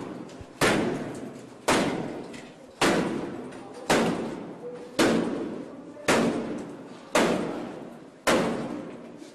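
Heavy blows struck on a door at a steady pace, about one a second, eight in all, each ringing out in the hallway before the next.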